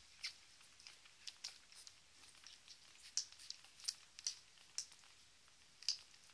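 Newborn puppies suckling at their mother's teats: faint, irregular wet smacking and clicking, about two a second.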